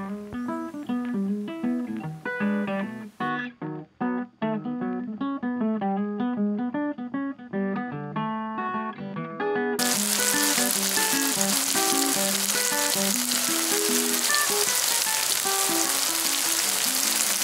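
Plucked guitar background music; about ten seconds in, a loud steady sizzle of tofu slices frying in oil in a pan starts suddenly under the music.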